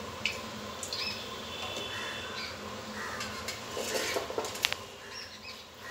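A few light clinks and knocks of a spoon and metal cookware while ghee is spooned into the oil in a metal kadai, the sharpest click about three-quarters of the way through.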